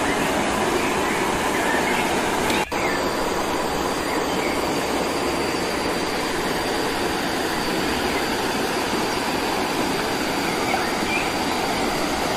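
Steady rush of water from a small waterfall and stream, with a brief dropout about a quarter of the way in.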